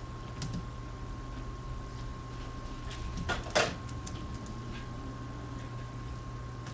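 Steady low electrical hum with a faint steady high tone, and a few scattered clicks and knocks, a short cluster of them about three and a half seconds in.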